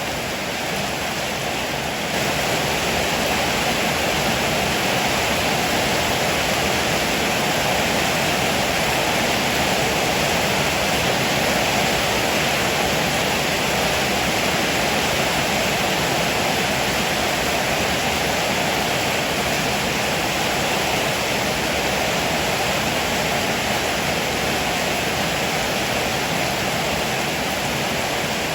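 Heavy rain pouring down steadily, a dense even hiss with no thunder claps, getting a little louder about two seconds in.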